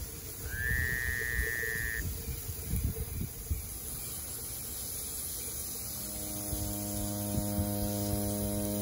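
Mesquite wood fire burning with a low rumble and scattered crackles, with a brief high whistle about half a second in. About six seconds in, a steady sustained musical chord fades in over it.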